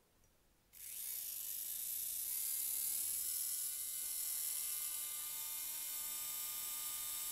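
Dental surgical handpiece drill starting about a second in, its whine rising in pitch as it spins up and then holding steady while it drills a pilot hole through a thin graft plate into a model jawbone.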